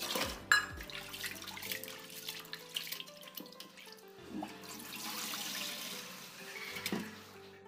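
A hand swishes rice in a steel bowl of water, splashing, then the cloudy rinse water pours out of the bowl into a steel sink from about four seconds in.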